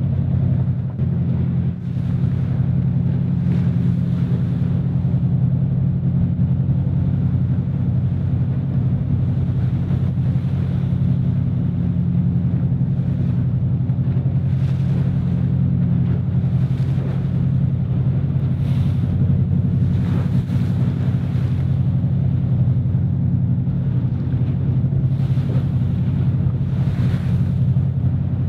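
Steady low engine drone from a boat on open water, with wind buffeting the microphone and waves splashing now and then.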